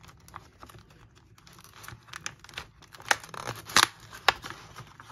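Fingers tearing open a cardboard advent calendar door and working a chocolate out of its plastic tray: a run of paper and plastic crackles and snaps, with several louder snaps about three to four seconds in.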